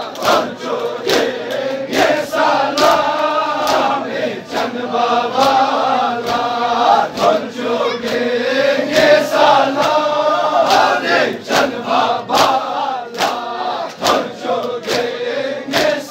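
A crowd of men chanting a Balti noha (mourning lament) together. Their hands strike their chests in unison, giving sharp rhythmic slaps (matam) about one every half to three-quarters of a second.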